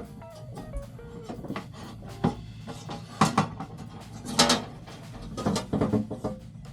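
Background music over scattered knocks and rubbing from fitting a refrigerator evaporator plate into place.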